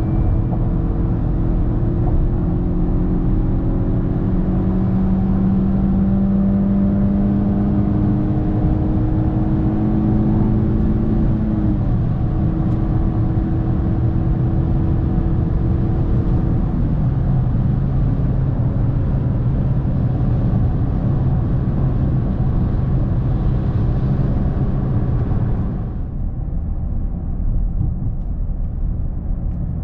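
Inside the cabin of a Toyota Corolla 1.6 Valvematic at motorway speed: the four-cylinder petrol engine's steady drone mixed with tyre and wind noise, its note climbing slowly and then stepping down lower about halfway through. Near the end the sound drops abruptly to a quieter, duller road noise.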